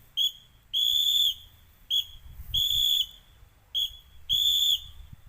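A whistle blown in a short–long pattern three times over, one steady high tone per blast. It is a scout whistle signal that the teacher reads as 'an important event has occurred'.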